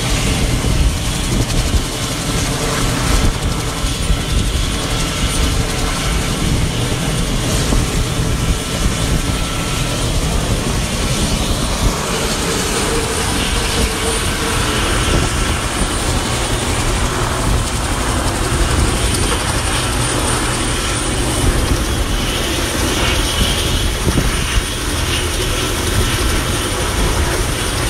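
Mi-8/Mi-17-type twin-turbine helicopter running on the ground with its main rotor turning: a loud, steady turbine roar with a fast pulsing beat from the rotor blades.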